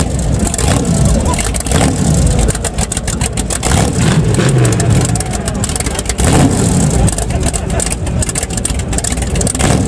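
V8-engined custom motorcycle running while stationary and revved in place, its low rumble swelling and falling with throttle blips about four and six and a half seconds in.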